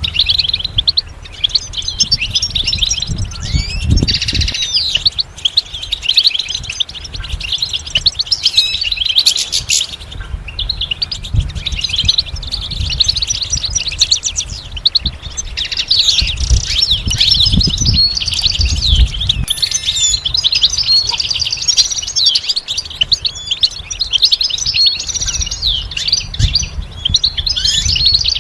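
European goldfinch singing: a long run of fast, tinkling twitters and trills with a couple of short pauses. A low rumble comes and goes underneath.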